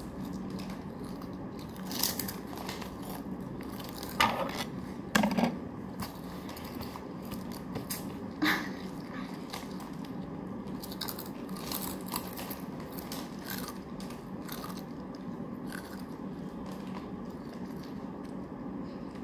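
Children eating crisp chips from a plastic packet: a few short crunching, crinkling sounds, most of them in the first half, over a steady low hum.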